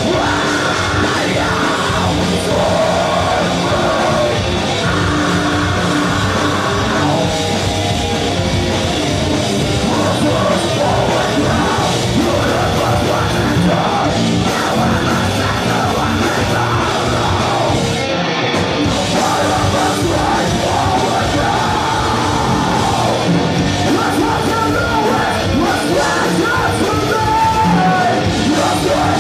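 Live metalcore band playing a heavy song: distorted guitars, bass and drums, with yelled, screamed vocals over them.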